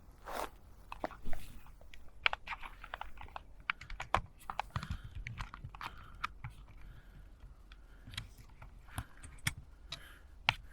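Footsteps along a leaf-littered mountain trail, dry leaves and twigs crackling and snapping underfoot in an irregular patter of sharp clicks.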